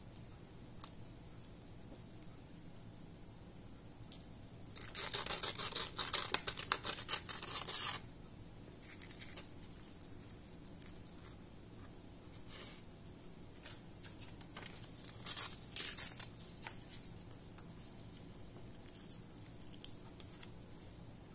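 A printed book page being split into strips: a sharp click, then about three seconds of dense, dry papery rasping, and a shorter burst of the same later on. Light paper-handling rustles fill the rest.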